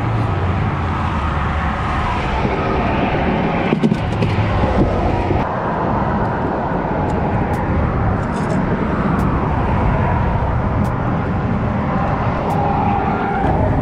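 Steady rumble of road traffic mixed with wind, with a few small clicks about four seconds in.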